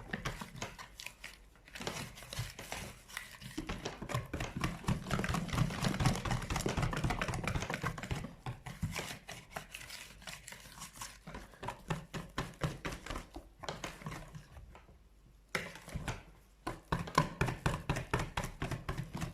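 Cake batter being stirred by hand in a mixing bowl: a fast, uneven run of clicks and scrapes as the utensil knocks and drags against the bowl, pausing briefly about two-thirds of the way through before starting again.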